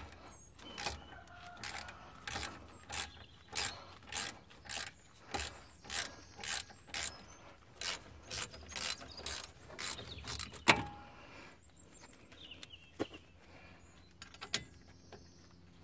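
A ratchet driving a T45 bit clicks in short runs, a little under two a second, as it winds out the brake caliper slide bolts. One sharper, louder click comes about ten seconds in, and after it only a few scattered clicks.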